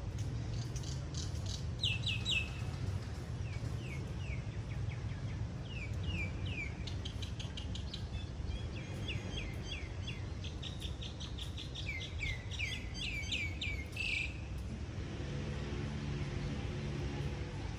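Small birds chirping, with runs of short, quick, downward-sweeping chirps repeated over and over, over a steady low rumble. The chirping stops about 14 seconds in, and a low steady hum with a few held tones takes over near the end.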